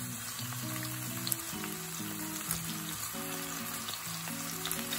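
Lotus root slices frying in sesame oil in a pan with a steady sizzle and a few light clicks. Background music with held notes plays alongside.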